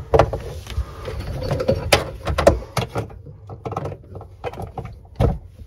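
Handling noise in the cabinet under a sink: rustling with a string of irregular knocks and clicks as hands move among the plastic drain pipe, hoses and cables.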